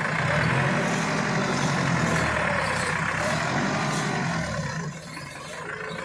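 Massey Ferguson 385 tractor's diesel engine running hard, its pitch wavering, as the front loader lifts a full bucket of earth. The engine eases off about five seconds in.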